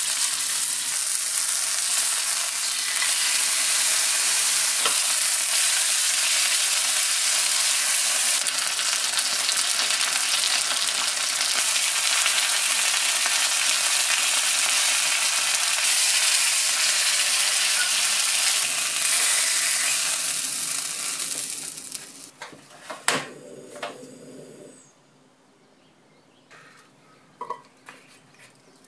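Chicken breast sizzling steadily in hot oil as it sears in a stainless steel frying pan, with tongs turning it. The sizzle dies away about three quarters of the way through, followed by a single sharp knock and then a quiet stretch with a few faint clicks.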